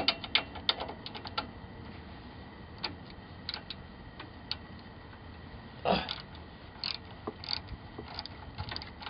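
Socket ratchet clicking as the 13 mm bolt on a carburetor float bowl is loosened: a quick run of clicks at the start, then scattered single clicks with a louder knock about six seconds in.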